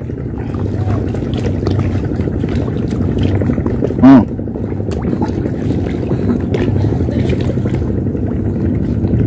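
Steady low rumble of wind on the microphone and small waves lapping against a concrete sea wall, with faint scattered ticks. About four seconds in there is one short voiced sound.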